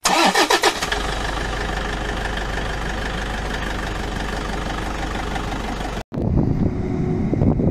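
A short falling swoosh, then a steady engine-like drone that cuts off abruptly after about six seconds. After the cut, wind buffets the microphone over the low rumble of a forage harvester chopping maize in the distance.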